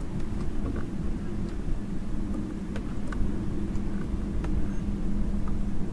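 Bow-mounted electric trolling motor running with a steady hum, over a low rumble, with a few faint ticks.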